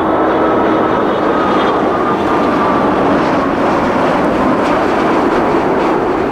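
Boeing 787-8 Dreamliner on final approach with its landing gear down, passing low and close: a loud, steady rush of jet engine noise with a faint whine that slides slightly down in pitch as it goes by.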